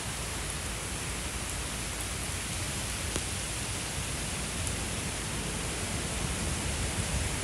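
Thunderstorm downpour: heavy rain falling steadily, an even hiss with no letup.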